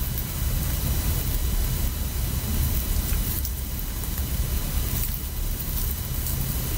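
Sticky sugar slime squeezed and pulled between fingers, with faint, irregular crackles, over a steady low rumble and hiss.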